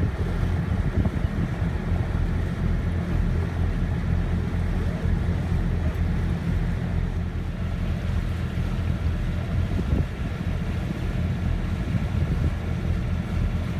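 Wind buffeting the microphone aboard a sailing yacht under way, over a steady low drone and the wash of water along the hull.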